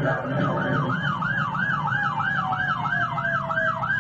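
Police car siren in a fast yelp, its pitch sweeping up and down about four times a second, over steady road and engine noise from the moving car. A fainter second tone slides slowly downward in the middle.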